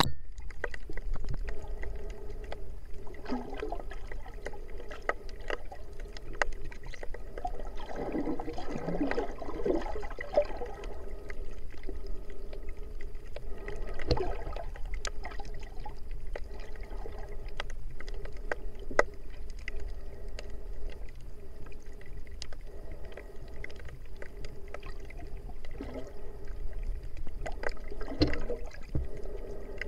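Underwater ambience: a steady low water rumble with scattered sharp clicks and a few gurgling swirls, the longest from about eight to ten seconds in.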